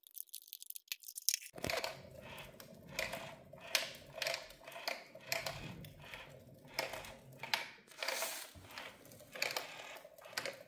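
Small battery-powered automatic cat toy starting up about a second and a half in: its motor hums steadily while plastic balls rattle and click irregularly around the plastic track.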